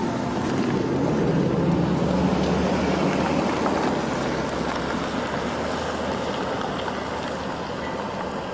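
Canadian Pacific train rolling past, a steady rumble that is loudest about two seconds in and then slowly fades.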